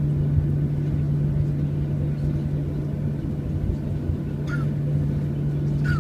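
Passenger airliner's engines running steadily: a constant low hum over a rumble, with two brief high chirps near the end.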